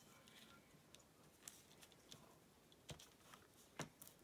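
Near silence, with a few faint taps and rustles of fabric and paper pieces being handled and pressed onto a paper pattern, the last tap near the end the loudest.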